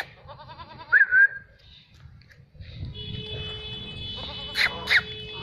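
Young Jamnapari buck goat bleating: a wavering bleat about a second in, then two short, sharp sounds near the end.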